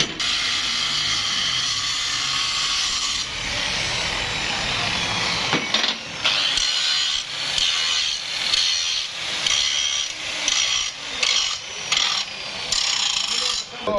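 A hand or power tool cutting or scraping metal on a car jack part. It is steady for about three seconds, then goes in short strokes about once a second from the middle on.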